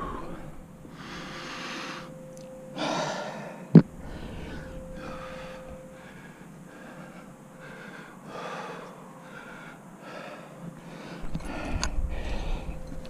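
A climber breathing hard, with heavy breaths every second or so, from the exertion of leading a sustained crack climb. A single sharp click comes about four seconds in.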